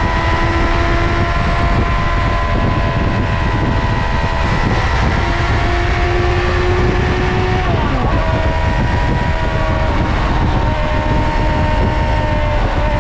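Suzuki GSX-R600 SRAD's inline-four engine running at a steady pitch under way, with heavy wind noise on the microphone. The engine note dips briefly and picks up again about eight seconds in.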